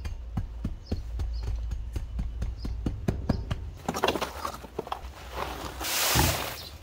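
Hand tamper thudding on loose soil at about four strikes a second. This gives way to the rustle of a plastic dimpled membrane being laid. Near the end comes a loud rushing hiss as loose fill slides out of a tipped wheelbarrow.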